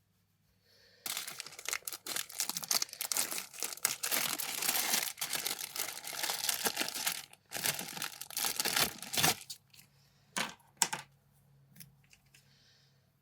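Plastic packaging crinkling and rustling as it is handled and pulled open, followed by a few sharp clicks near the end.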